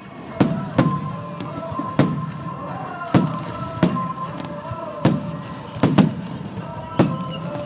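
Aerial fireworks shells bursting, about nine sharp bangs roughly a second apart, each with a rumbling tail.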